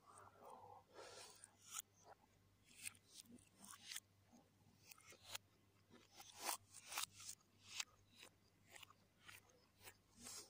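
Close-miked mouth sounds of eating by hand: faint, irregular wet chewing clicks and crunches, a few a second, over a faint steady low hum. The loudest crunches come a little past the middle, when a raw green chilli is bitten.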